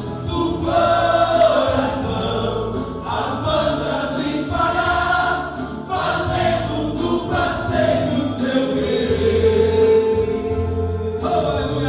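Men's choir singing a Pentecostal gospel hymn, closing on a long held note near the end.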